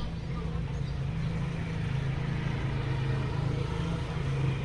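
Steady low hum of a motor vehicle engine running in the background, over faint outdoor noise.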